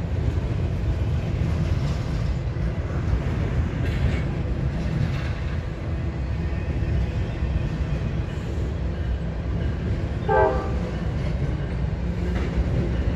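Double-stack container freight train rolling past: a steady heavy rumble of wheels on rail with occasional clicks, and a brief horn toot about ten seconds in.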